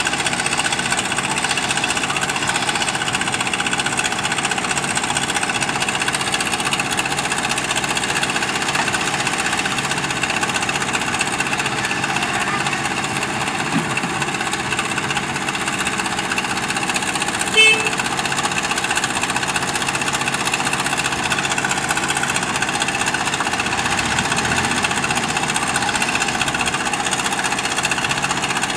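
JCB backhoe loader's diesel engine running steadily while its backhoe arm works, with one brief sharp knock about two-thirds of the way through.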